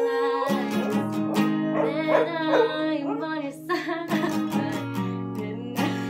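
English Cocker Spaniel howling along to an acoustic guitar being strummed.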